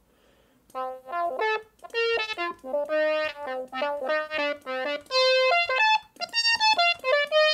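Synthesizer voice played from a 3D-printed MIDI ocarina: a melody of separate notes, mostly short with a few held longer, starting under a second in.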